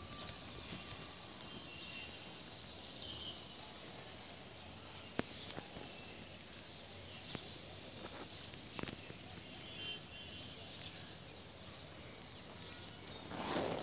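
Outdoor garden ambience: a steady background hiss with faint, brief bird chirps now and then, a few scattered clicks, and a short rustling burst near the end.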